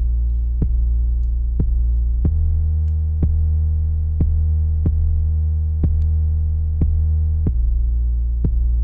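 A sustained synth 808 bass from FL Studio's 3x Osc, sidechained to the kick through Fruity Peak Controller on its fader so it ducks as each kick hits, playing under an electronic kick drum that hits about once a second. The bass note changes twice.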